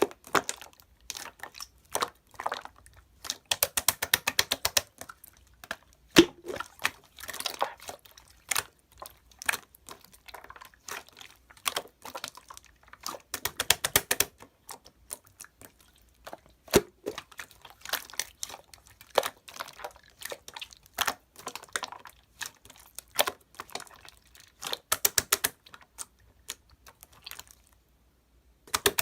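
Clear slime being squeezed and stretched by hand, giving crackling runs of small bubble pops and wet clicks in irregular bursts, with a brief pause near the end.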